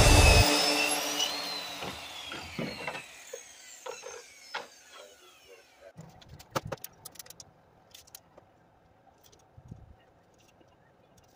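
Handheld circular saw winding down after a cut, its whine falling in pitch and fading away over about four seconds. Later, a few light clicks and knocks.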